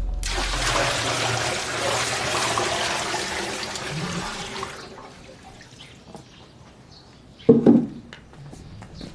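A loud rushing noise that starts suddenly and stops after about four and a half seconds, followed a few seconds later by a short, sharp thump.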